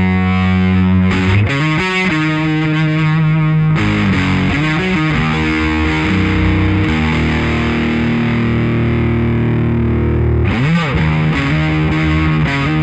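Electric guitar played through an original late-1980s Marshall The Guv'nor overdrive pedal, with a gritty, distorted tone. Several ringing notes lead into a long held chord, followed by a string bend about ten and a half seconds in.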